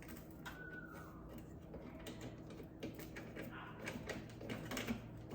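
Faint, irregular light clicks and ticks of a screwdriver and Torx bit working a new screw into a wall oven's door hinge.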